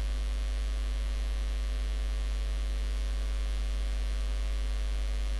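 Steady low electrical mains hum in the recording, strongest at about 50 Hz, with a row of fainter steady overtones above it.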